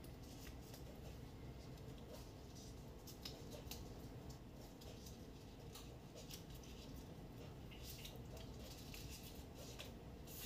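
Faint crisp rustling and scattered light clicks of stiff pandan leaves being folded and tucked by hand around pieces of chicken.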